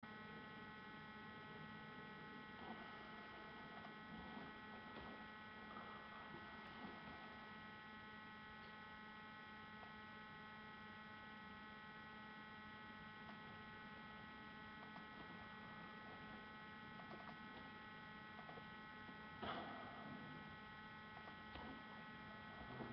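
Near silence with a faint steady electrical hum made of several constant tones, and a brief soft rustle about three-quarters of the way through.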